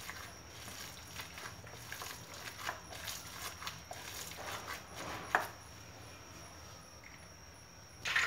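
Gloved hand kneading and squeezing raw minced mutton mixture in a bowl: soft, irregular squelching and patting, with one sharper slap about five seconds in, then quieter as the mixing stops.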